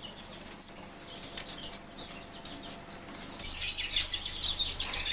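Young canaries in an aviary flight twittering and chirping. The calls are sparse and faint at first; about three and a half seconds in, a dense, louder chorus of high chirping starts suddenly.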